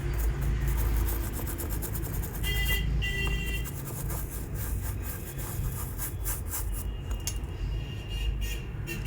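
Repeated rubbing and scrubbing strokes as a phone's circuit board is cleaned around a freshly soldered charging jack, over a steady low hum.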